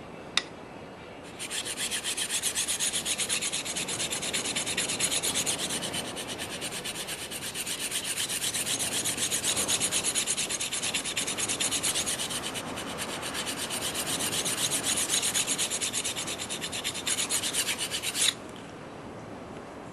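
A sharp click, then the steel edge of a two-blade broadhead rasping back and forth on the coarse side of a diamond sharpening rod in quick, even strokes for about seventeen seconds before stopping abruptly. This is the grinding of one bevel until a burr rolls up along the edge.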